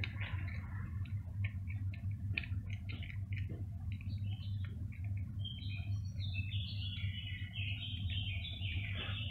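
A cat crunching dry kibble, a run of short crisp crunches over a steady low hum. About five seconds in, a bird chirps a quick series of high notes that carries on to the end.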